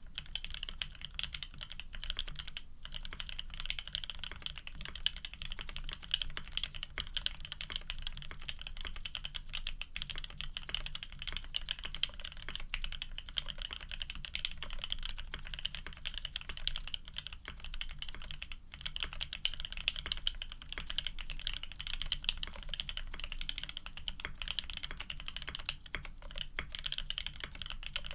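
Continuous fast typing on a custom F1-8K mechanical keyboard with lubed OP-Black linear switches, PBT keycaps and an FR4 plate, a dense run of key clacks with a few brief pauses.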